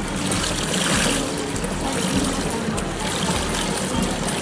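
Water sloshing and churning in the drum of a pedal-powered washing machine as it washes a load of clothes, a steady watery noise.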